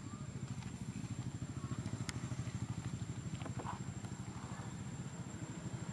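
A small engine running with a steady low throb.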